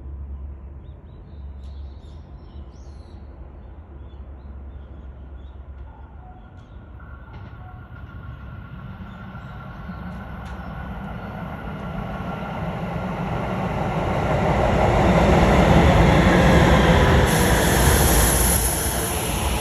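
Shin-Keisei 8800 series electric train approaching and running into the station, its rumble growing steadily louder over about ten seconds with a steady tone above it. A sharp high-pitched sound joins near the end.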